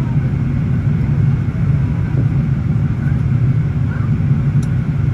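Steady low rumble of engine and airflow noise inside the cabin of a Boeing 777-300ER airliner.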